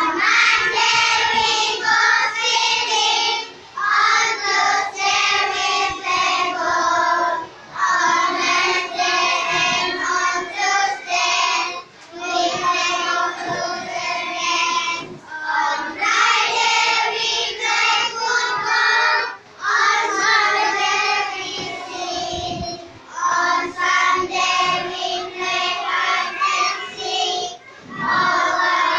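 A group of young children singing a song together from their songbooks, in phrases separated by short breaths every three to four seconds.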